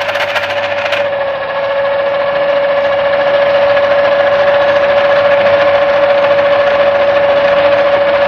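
Electric noodle machine's motor running steadily with a high whine as a sheet of dough is rolled flat between its rollers.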